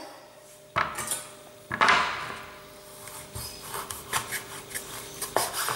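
Two sharp knocks on a wooden cutting board, about a second apart. Then a chef's knife saws through a hard, fully cured paprika-coated pork loin, with a run of small scrapes and clicks against the board.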